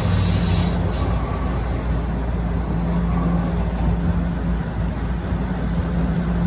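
Steady low hum and rumble inside a Toronto TTC Line 1 subway car. A high hiss fades away about a second in.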